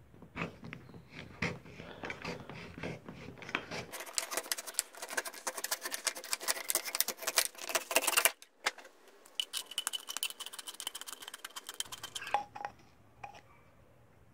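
Knife blade cutting around a thin metal aerosol can: a fast, uneven run of crackling scrapes and clicks lasting about twelve seconds, with a thin steady squeal of blade on metal in its last few seconds. It stops abruptly, leaving a few light clicks.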